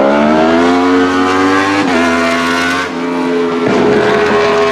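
Yamaha YZF-R1 World Superbike's four-cylinder engine with Akrapovic exhaust under hard acceleration, pitch climbing, cut briefly by upshifts about two and three seconds in, then holding a steadier note.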